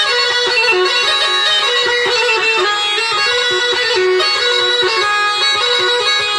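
Bagpipe music: a steady drone under a fast-moving melody.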